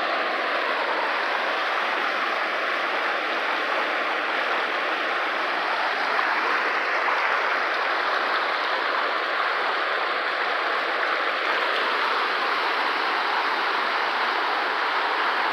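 Water rushing steadily through a fish ladder's stepped pools and weirs: a dense, even rush with no breaks.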